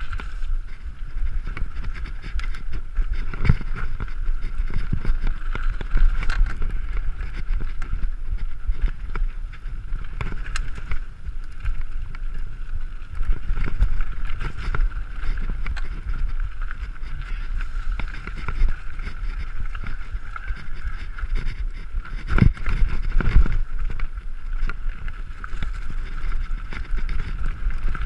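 Mountain bike running down a rough trail: a steady low rumble of tyres and wind buffeting the camera's microphone, with frequent rattles and knocks as the bike goes over roots and rocks. The knocks are heaviest about 22 seconds in.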